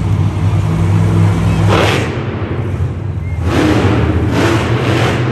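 Motor vehicle engines running in an indoor arena: a steady low rumble, then from about two seconds in, several short loud surges of noise with quieter gaps between.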